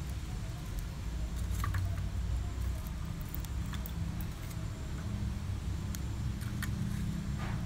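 Metal tongs picking up and setting down small lumps of charcoal in a metal grill tray, giving a few scattered light clicks and clinks, over a steady low rumble.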